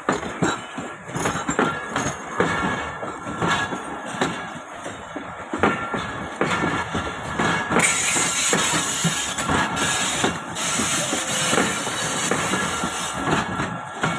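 Passenger coaches of the Shalimar Express rolling past close by, a steady rumble with irregular clacks and knocks of the wheels on the rails. About eight seconds in, a loud hiss rises over it for a couple of seconds.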